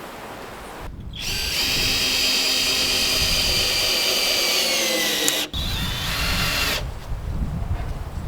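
Power drill whirring for about four seconds, its pitch sagging slightly near the end as it comes under load, then a shorter, quieter run.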